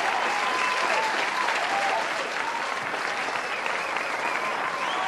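Steady applause with voices calling out over it.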